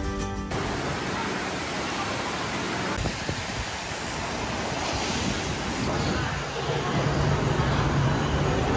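Background music cuts off about half a second in, giving way to a steady rushing noise. A low steady hum joins it about seven seconds in.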